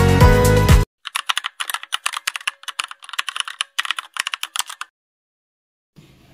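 Upbeat background music that cuts off just under a second in, then a typing sound effect: rapid computer-keyboard key clicks in short runs for about four seconds, laid over text being typed out on screen.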